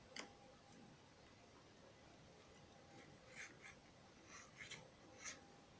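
Near silence with a few faint, short scratches of a pencil on paper, most of them in the second half.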